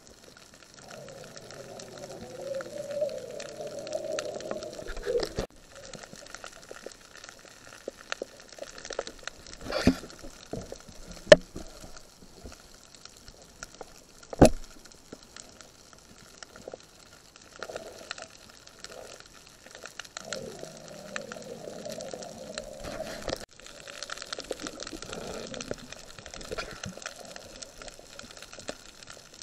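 Underwater sound on a reef: a steady crackle of fine clicks, with two spells of bubbly gurgling and a few sharp knocks, the loudest about eleven seconds in.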